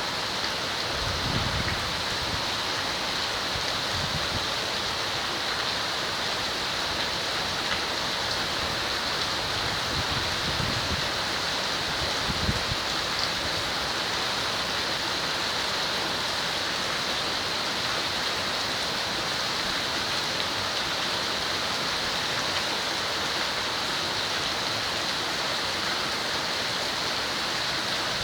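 Heavy tropical rain falling steadily, a dense even hiss, with a few brief low rumbles in the first half.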